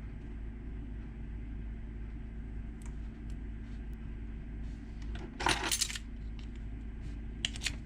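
Small metal parts of a car hatch lock cylinder clicking and clinking as they are handled and fitted: a few light clicks, a short burst of metallic clinking a little past halfway, then two or three sharp clicks near the end, over a steady low hum.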